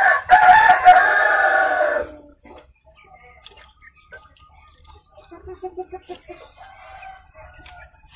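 A rooster crows once at the start, a loud call lasting about two seconds. After it, hens cluck softly in quick runs of short notes.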